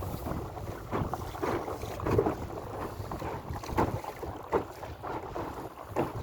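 Water splashing and slapping irregularly against the hull of a Tribord 5S inflatable sailing dinghy under way, with a steady low rumble of wind on the microphone.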